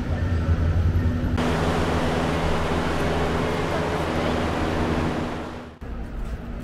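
Motorboat engine running as the boat speeds past, with the rushing hiss of its wake on the water. The sound changes abruptly twice, and near the end it gives way to quieter riverside ambience.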